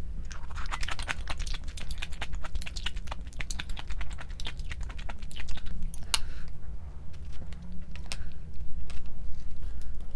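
A quick, irregular run of light clicks and taps, thinning out about two-thirds of the way through, over a low steady hum.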